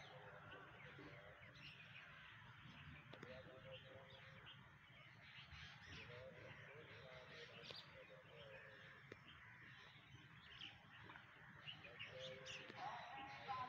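Faint background birdsong: many short chirps and calls from wild birds, with a few louder calls now and then.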